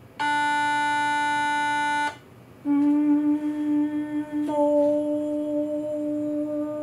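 A pitch pipe app on a phone sounds a steady reference tone on D above middle C for about two seconds. A woman then matches it, holding a soft, steady hum on the M of "mo" on the same D. About four and a half seconds in, the hum opens into a rounded "oh", held on as a sustained vocal function exercise.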